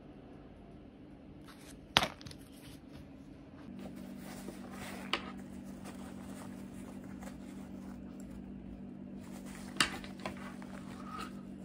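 Light handling noises of a sheet-mask packet and then a fabric travel pouch, with sharp taps or clicks about two seconds in (the loudest), around five seconds, and twice near the end, over a steady low hum.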